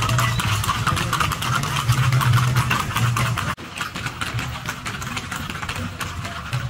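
A low, idling engine hum that pulses on and off, with rapid clicking of horseshoes on pavement. The sound drops out briefly a little past halfway.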